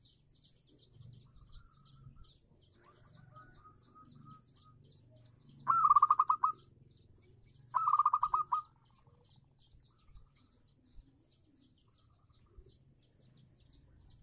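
Zebra dove (perkutut) cooing: two loud bursts of fast staccato coo notes about two seconds apart, a little before the middle, after a few softer coos. Faint high chirps of small birds repeat throughout in the background.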